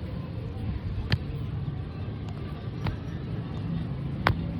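Hammer blows on steel, single sharp strikes about every one and a half seconds, three in all, over a steady low workshop hum.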